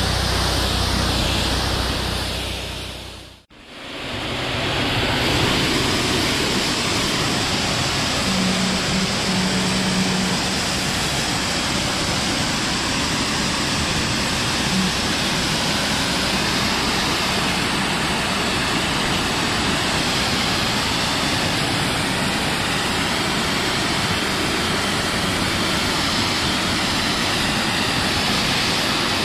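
Pressure washer running steadily, its water jet spraying with a continuous rushing hiss. The sound fades out briefly and comes back about three and a half seconds in.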